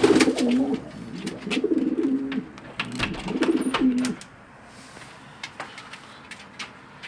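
Domestic pigeons cooing: three throaty coo phrases of about a second each in the first four seconds, then quieter. Scattered sharp clicks and taps run throughout.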